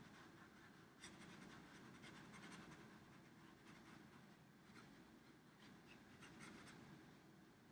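Felt-tip permanent marker scratching across drawing paper, faint, in short strokes with brief pauses, starting about a second in, as black areas are filled in.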